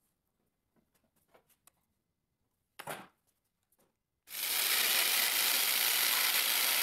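Corded jigsaw starts up about four seconds in and runs steadily as its blade cuts through a thin PVC pipe. Before that, only a few faint handling clicks and one short knock.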